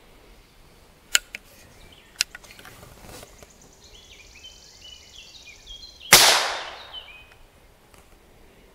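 Percussion-lock muzzleloading rifle: two sharp clicks at the lock as it is readied, then about six seconds in the fresh percussion cap goes off with one sharp crack that echoes away over about a second. The black-powder charge does not catch: a repeated misfire.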